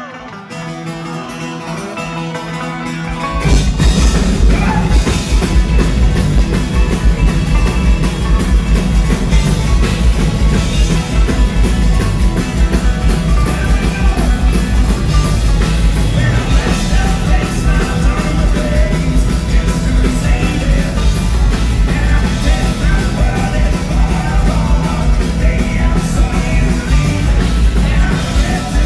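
Rock music with singing. A quieter opening gives way to the full band with heavy bass about three and a half seconds in.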